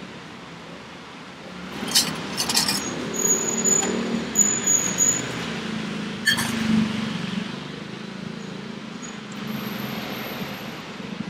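Road traffic running by, with a few sharp clinks and knocks about two seconds in and again a little after six seconds.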